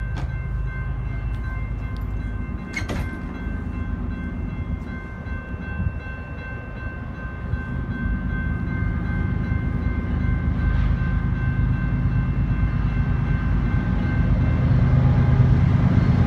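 BNSF diesel freight train approaching: a low locomotive rumble growing steadily louder, with a steady set of high tones held through most of it.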